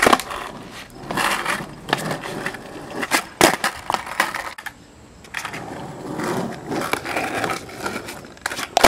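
Skateboard on asphalt: wheels rolling, broken by several sharp clacks of the board popping and landing.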